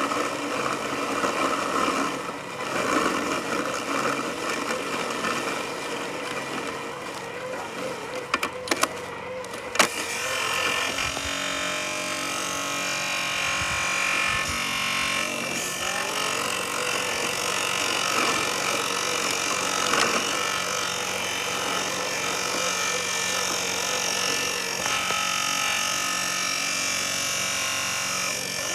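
Robotic lawn mower mowing, its electric drive and blade motors giving a steady whine that shifts in pitch now and then. A few sharp knocks come about a third of the way in.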